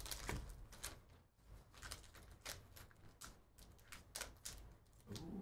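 Faint crinkling and crackling of a sealed black plastic pouch being torn open and handled by hand: a string of irregular sharp crackles.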